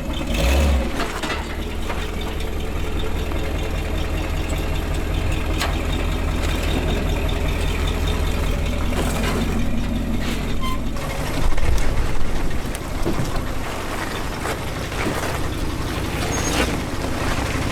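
Jeep engine running with a steady low rumble, with a louder stretch about eleven seconds in.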